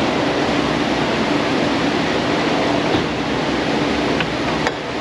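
Steady rushing air noise with a faint low hum throughout, and two light clicks near the end.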